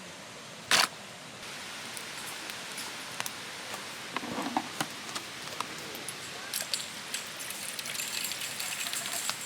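A beer can cracked open with one short, loud hiss about a second in, then beer poured and its foam fizzing and crackling in the second half, over the steady rush of a stream.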